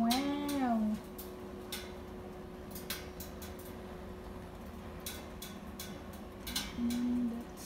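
A cat's drawn-out meow, rising and falling as it ends in the first second, then scattered light clicks and taps over a faint steady hum. A second short, even-pitched cry comes near the end.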